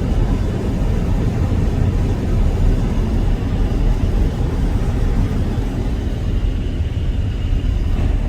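Steady low rumble of a vehicle driving on an icy road, engine and tyre noise heard from inside the vehicle.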